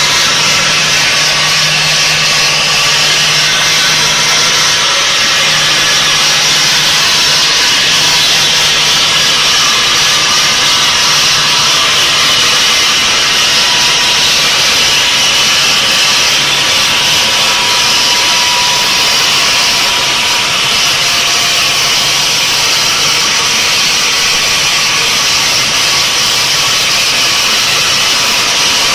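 Bridge saw's large circular blade cutting through a row of granite blocks: a steady, loud, high-pitched grinding hiss with a faint steady whine and a low motor hum beneath.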